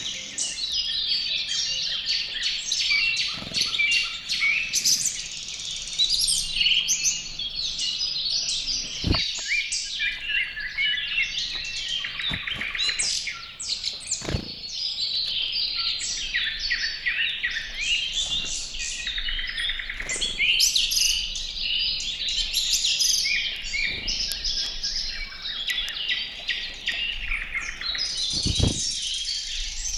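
Many small songbirds chirping and calling at once, a dense, continuous chatter of short high chirps, with a few soft knocks about nine, fourteen and twenty-eight seconds in.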